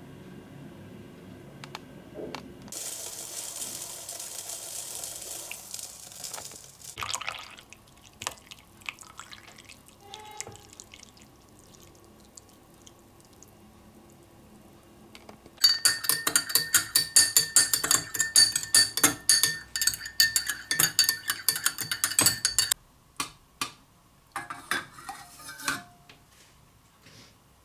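A spoon stirring briskly in a drinking glass, clinking rapidly against the sides with a ringing glass tone for about seven seconds in the second half. Earlier there are a few seconds of hissing, and near the end a few scattered clinks.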